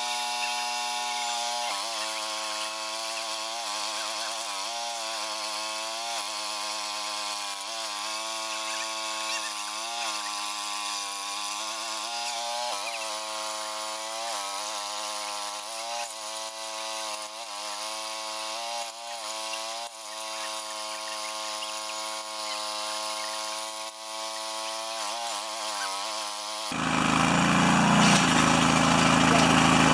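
Small engine running, its pitch dipping and recovering over and over as it comes under load. About 27 seconds in, it gives way abruptly to a louder, deeper engine noise.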